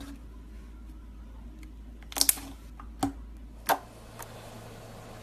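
A few short, sharp clicks over a steady low hum: two close together about two seconds in, then two more about a second and a half apart.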